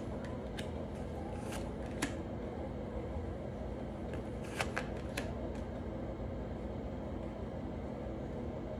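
A few light, sharp clicks and taps scattered through the first five seconds, over a steady low background hum.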